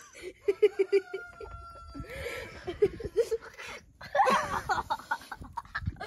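Children laughing in quick repeated bursts, rising to a louder stretch of laughter about four seconds in.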